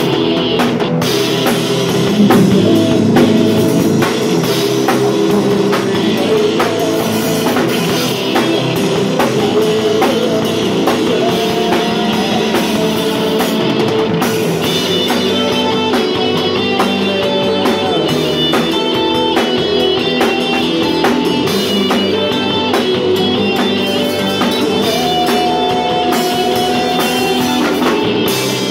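Live rock band playing a song: a drum kit struck steadily with drum and cymbal hits over an electric bass line.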